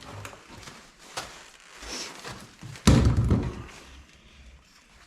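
A few light knocks and clicks of things being handled, then one heavy thunk about three seconds in, the loudest sound, with a short deep rumble after it.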